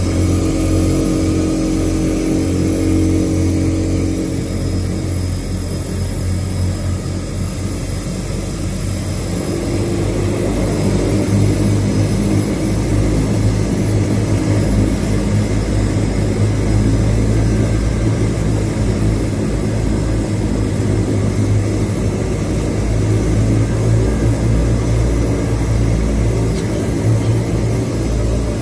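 De Havilland Canada Twin Otter seaplane's Pratt & Whitney PT6A turboprop engine and propeller droning steadily, heard from inside the cabin. About nine to ten seconds in the pitch of the drone shifts and it gets a little louder.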